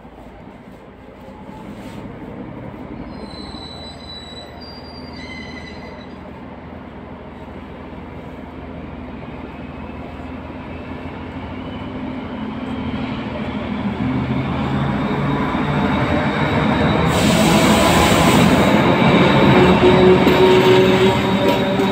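ČD class 754 diesel-electric locomotive pulling a passenger train away from the station, its engine hum growing steadily louder as it accelerates toward and past the listener. A few brief high-pitched squeals come a few seconds in, and a loud rushing noise is heard as the locomotive goes by near the end.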